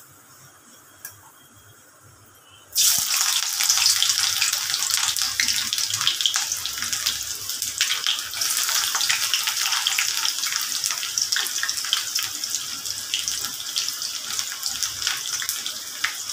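Chopped onion dropped into hot oil with dried red chillies in a kadai, starting to sizzle suddenly about three seconds in: a dense hiss full of crackling spatters that eases slightly toward the end.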